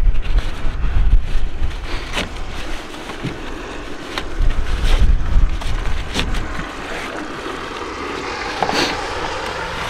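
Wind buffeting the microphone in gusts, over rustling and scraping of a nylon ratchet strap being looped around a car tyre, with a few sharp clicks from the strap's hardware.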